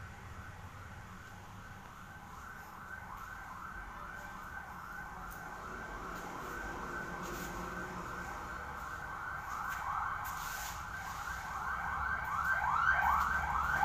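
Emergency-vehicle siren sounding in a fast yelp, its pitch sweeping about three times a second and growing louder as it draws nearer.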